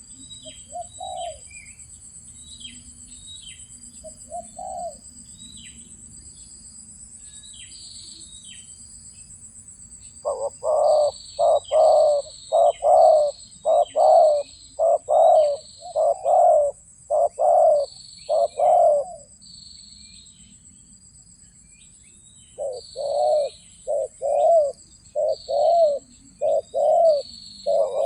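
Spotted doves cooing: two soft coos near the start, then a run of loud, evenly spaced coos about one a second for some nine seconds, a short pause, and another run near the end. Small birds chirp over a steady high insect drone.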